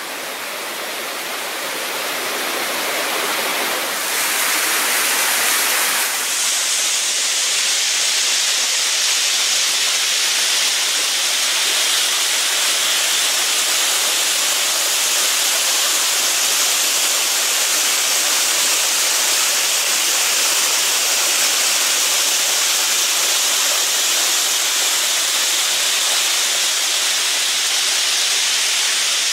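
A creek waterfall pouring down beneath a railway trestle: a steady rush of falling water. It grows louder over the first six seconds or so, then holds even.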